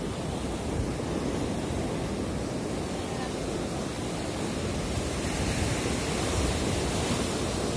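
Ocean surf on a sandy beach: waves breaking and washing up the shore as a steady rush of noise, a little louder from about five seconds in.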